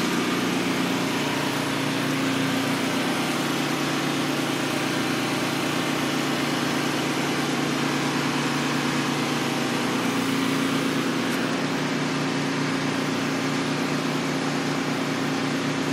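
A motor running steadily at constant speed, with an even hum.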